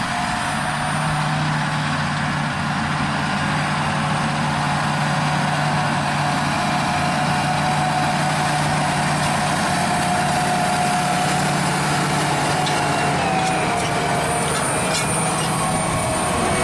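John Deere 8320R tractor's six-cylinder diesel engine running steadily while pulling a Väderstad Rapid seed drill through tilled soil, a steady whine over the engine hum. A few light clicks and rattles come near the end.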